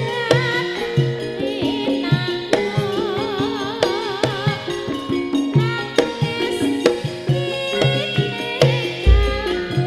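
Tayub-style dangdut koplo music: a melody with wide vibrato over fast, regular hand-drum strokes and a steady bass line. A very deep bass boom comes in near the end.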